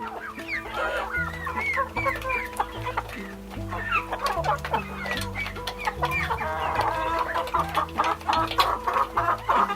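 Chickens clucking, with a rapid run of many short clucks in the second half, over background music with a steady bass line.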